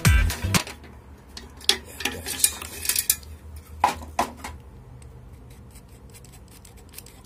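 Metal clinking and clattering as an exhaust fan motor is taken off its frame by hand, with a steel screwdriver set down on a tile floor: a handful of sharp clinks and knocks in the first four seconds, then only faint handling noise.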